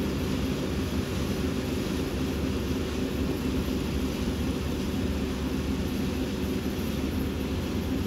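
Kubota combine harvester running steadily as it drives through the standing rice, cutting the crop: a continuous engine drone.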